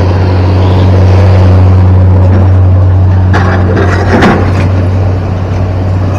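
Sumitomo hydraulic excavator's diesel engine running with a steady low hum over the rush of a fast, muddy river. A few knocks of rock on rock come about three to four seconds in as the machine works the boulders.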